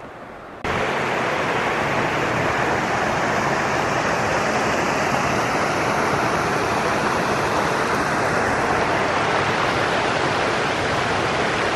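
A small rocky mountain stream rushing and splashing over stones close by: a steady, loud rush of water that cuts in abruptly just under a second in.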